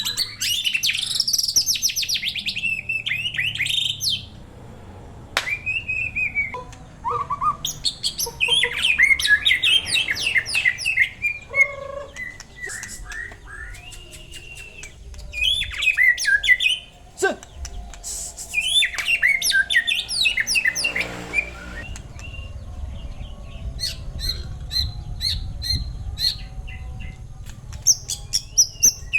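White-rumped shama (murai batu) singing in separate bursts of fast, varied whistled and trilled phrases with short pauses between them. Near the end comes a run of short, sharp chip notes.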